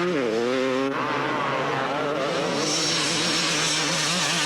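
Two-stroke 250cc motocross bike engine revving hard, its pitch dropping and climbing again in the first second, then running on at a steadier high note.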